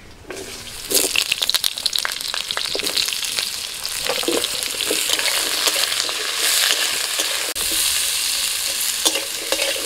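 Slices of potato, radish and sweet potato going into hot mustard oil in a wok, sizzling and crackling from about a second in, then stirred with a metal spatula.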